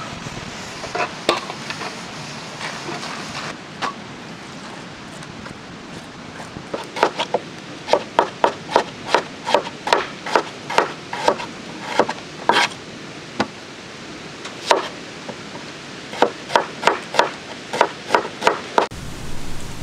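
Knife chopping on a cutting board: runs of quick, sharp knocks, about three a second, broken by a pause of a few seconds.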